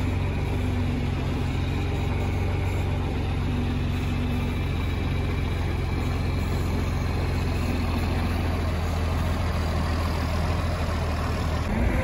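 John Deere 4320 tractor's diesel engine idling steadily, a constant low hum with no revving; its sound shifts slightly and gets a little louder near the end.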